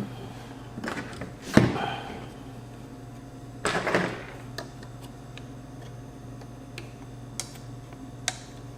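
Metal parts of a car amplifier being handled and set down: a sharp knock about a second and a half in, a cluster of knocks and rattles around four seconds, then a few light clicks.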